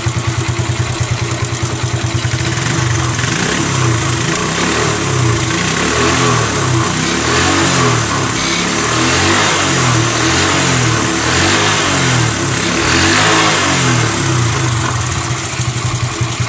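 Honda MD90's single-cylinder four-stroke engine running at idle, its exhaust blowing from the silencer right by the microphone. Its note wavers through the middle stretch. The carburetor has just been tuned, and the engine runs well-tuned.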